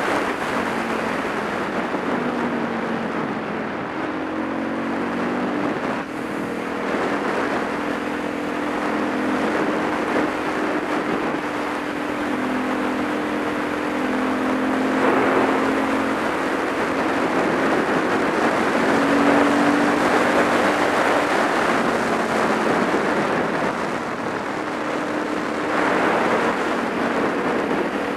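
Supermoto motorcycle engine running at road speed, its pitch stepping up and down a few times with throttle and gear changes, under heavy wind rush on the bike-mounted camera's microphone that swells in gusts.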